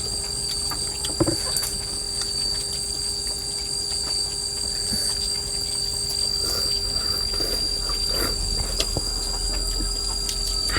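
Insects chirring steadily in one continuous high whine, with scattered light clicks and taps of chopsticks and bowls during a meal.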